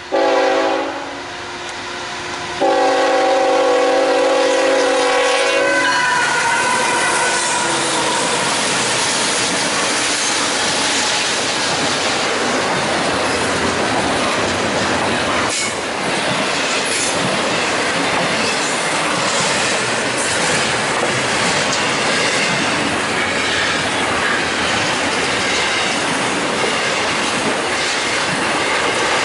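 Freight locomotive's multi-note air horn sounds a short blast, then a long one that drops in pitch and cuts off as the locomotive passes, the end of its grade-crossing signal. Then a double-stack container train rolls by close up, with steady wheel-on-rail noise, clicking over rail joints and some wheel squeal.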